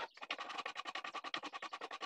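A flat metal tool drawn along the ridged edge of a glued-up panel of wooden slats, giving a fast, even rattle of clicks, about fifteen a second, as the blade jumps from slat to slat.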